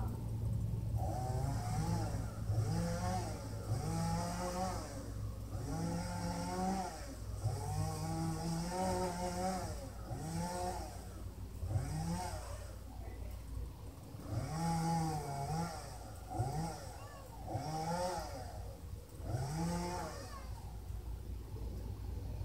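Chainsaw, heard from a distance, revved up and down about once a second while cutting up a fallen pine tree.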